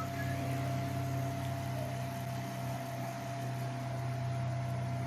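Cooling fans of a running desktop computer, a steady hum with a low drone and a thin, steady whine above it.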